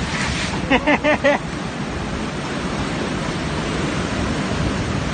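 Ocean surf breaking and foaming against black shoreline rocks, a steady rushing wash. About a second in, a voice gives three short syllables.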